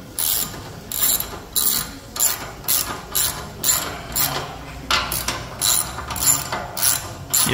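Hand ratchet wrench clicking in quick back-and-forth strokes, about two a second, tightening the bolts of an exhaust band clamp.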